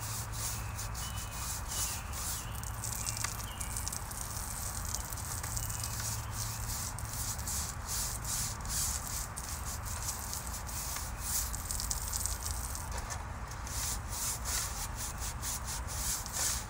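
Bristles of a water-fed pole brush scrubbing a wet window screen in quick back-and-forth strokes, a hissy rasp repeating several times a second.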